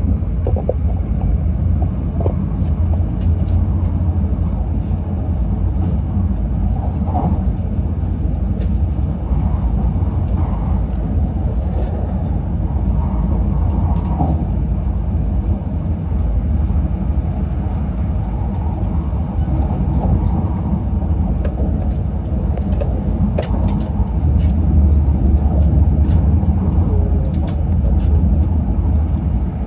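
Steady low rumble of an E6 series Shinkansen running at speed, heard inside the passenger cabin. A few faint clicks come about two thirds of the way through, and the rumble swells slightly soon after.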